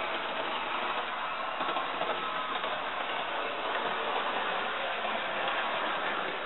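DCC-converted VI Trains Class 47 model diesel locomotive running on the layout track: a steady whirr of its motor and wheels.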